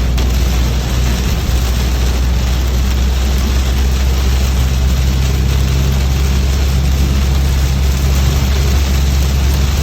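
Car driving in heavy rain: a steady low drone of engine and tyres under an even hiss of rain and road spray.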